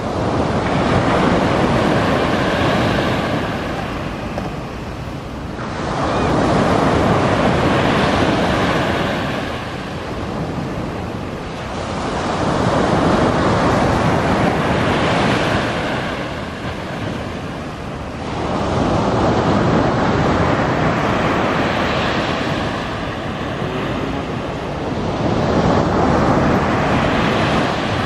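Sea waves breaking and washing up a sandy beach: the surf swells and falls back about five times, roughly once every six seconds.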